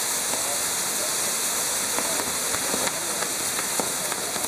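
Maltese ground firework (in-nar tal-art) spinning wheel burning, its gerbs giving a steady hiss with a few faint crackles.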